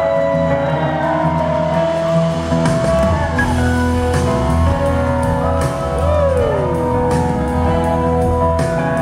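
Live blues-rock band playing, with electric guitars over bass and drums. A slide guitar line glides up and down in pitch, with a long downward slide about six seconds in.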